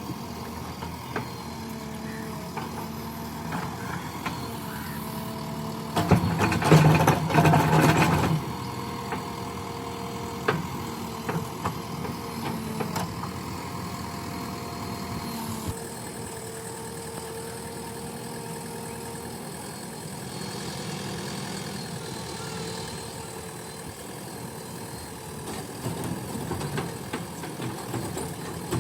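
JCB 3DX backhoe loader's diesel engine running steadily, louder for about two seconds around six seconds in, with a few short knocks here and there.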